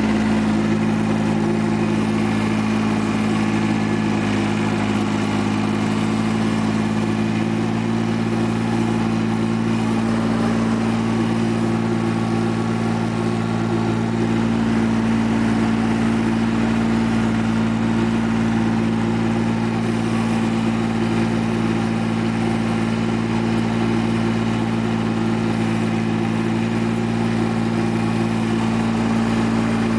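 Compact 4x4 diesel farm tractor's engine running at a steady speed as the tractor drives along, heard close up from the driver's seat.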